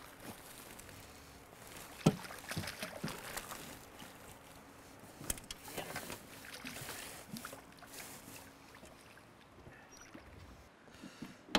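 Hooked striped bass splashing at the water's surface beside the boat as it is landed, in two bouts of splashing, with a sharp knock about two seconds in.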